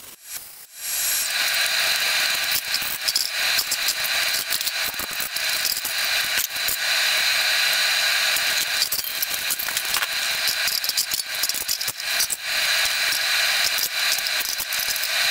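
Wire-feed welder arc crackling steadily as steel is welded, a dense sizzle of fine pops that starts about a second in.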